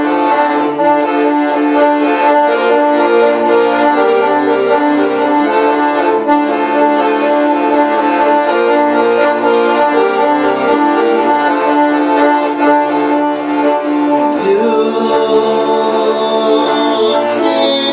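Piano accordion and bowed cello playing an instrumental folk passage in sustained, changing chords, with the accordion loudest.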